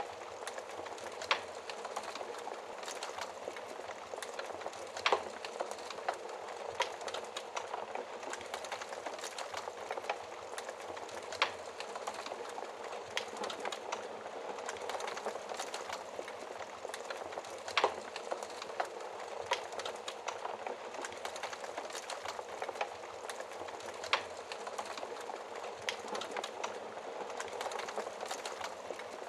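Wood fire crackling: a steady hiss of burning with scattered sharp snaps and pops, a few much louder than the rest.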